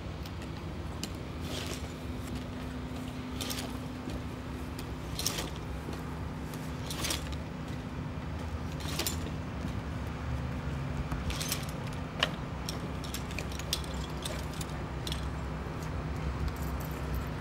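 A lineman's metal climbing gear and tool-belt hardware clinking and jangling as he steps down a wooden utility pole on climbing hooks, with a sharp clink about every two seconds. Underneath runs a steady low hum of idling bucket-truck engines.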